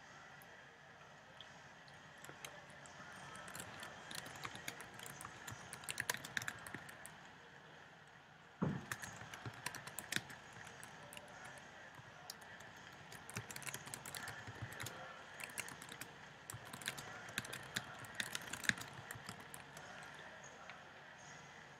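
Arena crowd cheering and clapping, with clusters of sharp irregular claps over a steady background din. A single thump comes about eight and a half seconds in.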